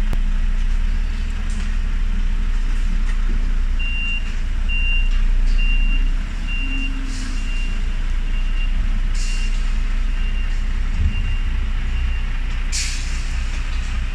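Crane lorry's diesel engine running at low speed while its reversing alarm beeps about once a second. Three short hisses of air from the air brakes break in, the loudest near the end.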